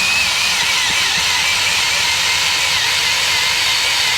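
Half-inch drill running steadily under load as an auger bit bores into the ground for a fence post, its motor whine wavering slightly in pitch.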